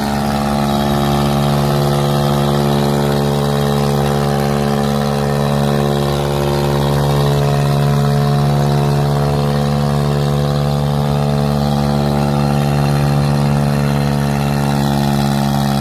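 Tractor diesel engine running steadily at a constant speed.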